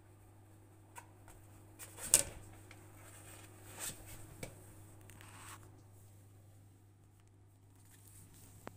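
Handling noise from the phone recording it: scattered clicks and rustles, with one sharp knock about two seconds in, over a faint steady hum.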